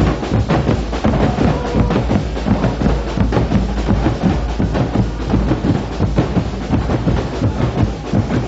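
A marching carnival skin-drum band beating large strap-slung bass drums together in a dense, steady rhythm.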